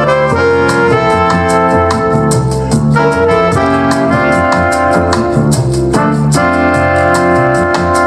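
Music with held chords and a steady beat, played at 75% volume through a JBL Horizon 2 Bluetooth clock radio speaker and picked up by a microphone in the room.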